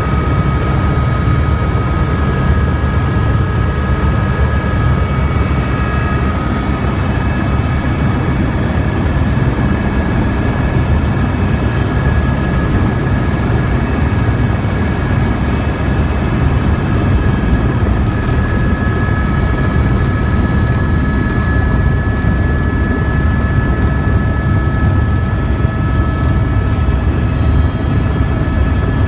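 Helicopter in flight, its engine and rotor running steadily: a heavy low rumble with a steady high whine over it.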